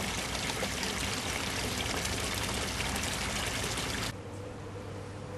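Water splashing and churning steadily into an aquaponics fish tank, a constant rushing noise that cuts off suddenly about four seconds in, leaving a faint low hum.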